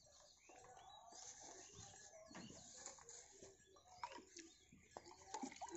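Near silence with faint bird chirps in the background and a few soft clicks late on.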